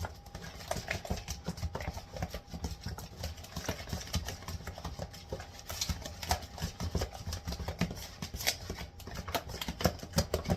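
Irregular clicks and taps of kitchen handling while seasoning food: containers and a utensil knocking against a bowl, many small strikes with no steady rhythm.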